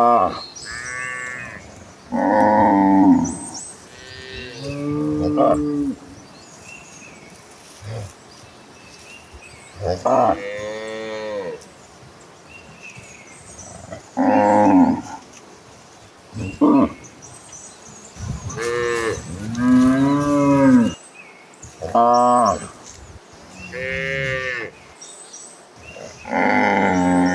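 A herd of cattle mooing again and again: about a dozen calls from different animals, some low and drawn out, others higher and short, each rising and then falling in pitch.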